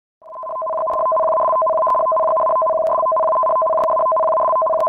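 Electronic alert tone: two steady pitches held together, swelling in over the first second and then sustained, the attention signal for a tsunami warning.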